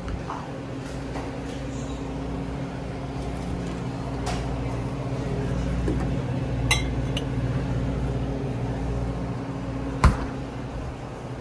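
Glass beer bottles clinking as they are taken out of a drinks cooler, with a sharp knock near the end, over a steady low hum from the shop's refrigeration.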